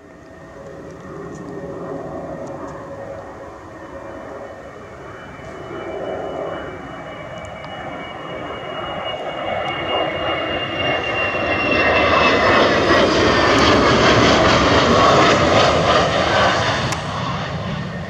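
F-16 fighter's single jet engine on landing approach. It grows steadily louder as the jet closes in, peaks about three-quarters of the way through and eases slightly near the end. A high engine whine slides slowly down in pitch.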